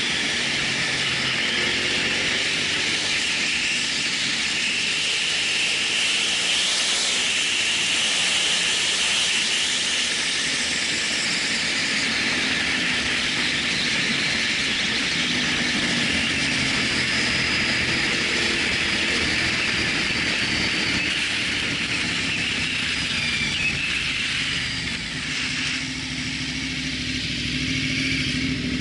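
Wind rushing over the camera microphone of a motorcycle at about 45 mph, with the motorcycle engine running underneath. The engine pitch rises and falls with the throttle and climbs near the end.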